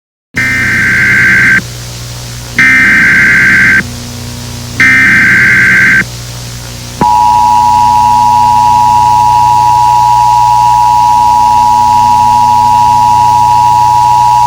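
Emergency Alert System tones: three loud bursts of digital SAME header data, each just over a second long, followed about seven seconds in by the steady two-tone EAS attention signal. A steady low hum runs underneath. The sequence marks the start of a new alert, here a tornado warning.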